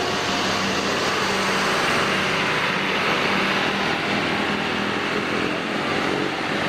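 Road traffic noise from a large vehicle such as a bus, with engine and tyre noise running steadily and a faint low hum throughout.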